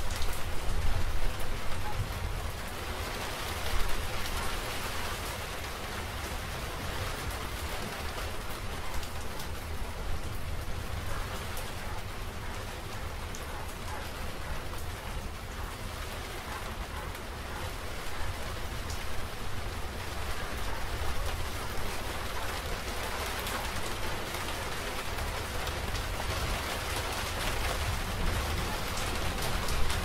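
Steady rain falling, with a constant low rumble underneath and a few louder swells in the first four seconds.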